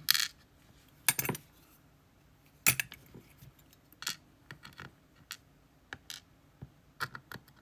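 Light metallic clicks and clinks of small lock pins and master wafers being handled and set down while a GeGe pExtra+ cylinder is taken apart. The clicks are irregular, with the sharpest just at the start, about a second in and near three seconds in.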